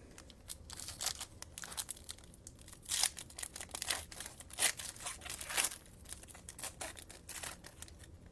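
Wrapper of a Panini Illusions football card pack being torn open and crinkled by hand, a run of short crackling rips, loudest around the middle.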